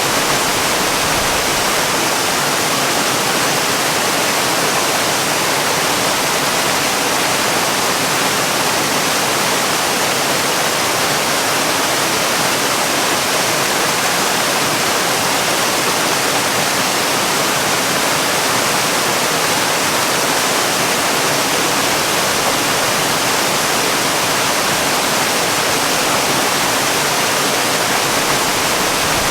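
Waterfall pouring: a steady, unbroken rush of falling water, with most of its energy in the middle and upper range and little low rumble.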